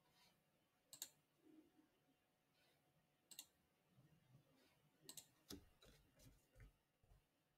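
Faint, sparse clicks of a computer mouse and keyboard keys: a few separate clicks, then a quick cluster of clicks and soft taps about five seconds in.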